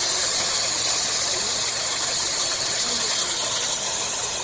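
Froggy's Fog Hyperion D6 upshot fog machine firing a vertical jet of fog: a loud, steady hiss of fog blasting from its nozzle.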